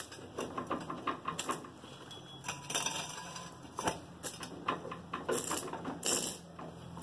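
Irregular metallic clicks and clanks of hand work on a Ford 1220 tractor's front axle and drive shaft, with metal parts and tools knocking together.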